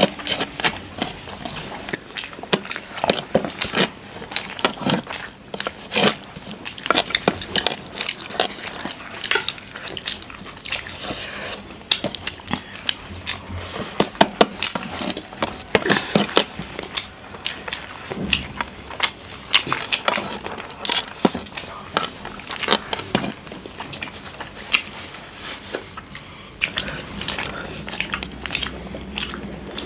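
People eating close to the microphone: chewing and biting with many short, irregular clicks and smacks.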